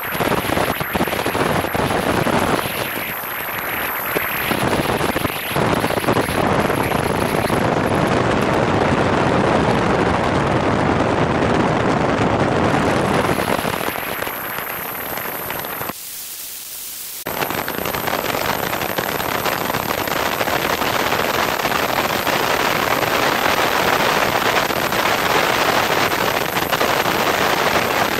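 Loud rushing wind and buffeting noise on a camera mounted under a Piper Cherokee's wing as the plane speeds down the runway and lifts off near the end. The noise builds over the first several seconds and drops away for about a second midway.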